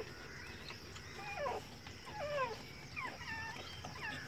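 Newborn Rottweiler–Indian pariah cross puppies crying: about five short, high squeaky cries, each sliding down in pitch.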